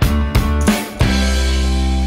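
Background music with a drum beat: several drum hits in the first second, then a held instrumental chord.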